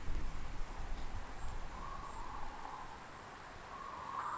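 Insects, crickets, chirring steadily in the evening, with a swelling buzz that rises twice. Under it a low rumble dies away over the first couple of seconds.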